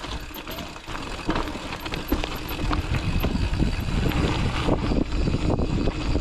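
Mountain bike ridden fast down a rough dirt trail: tyres on dirt and rock, with the bike rattling over bumps in many sharp knocks over a steady low rumble.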